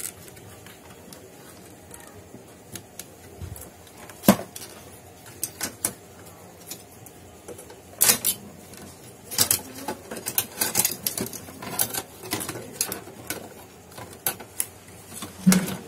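Irregular clicks and light knocks of plastic and sheet-metal scanner parts being handled as flex cables and connectors are unplugged from the formatter board, the sharpest about four and eight seconds in.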